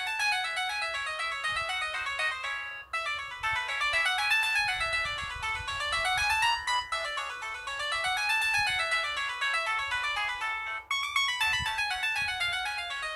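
Pantech&Curitel PG-L1200 folder phone playing a 64-polyphonic ringtone: a fast melody of quick notes rising and falling in arpeggios, with a short break about three seconds in and another near the end.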